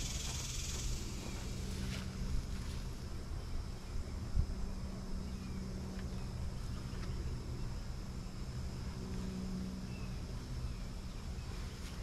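Honeybees buzzing in a steady hum around an opened hive as its frames are moved, with a few light knocks of the wooden frames being handled.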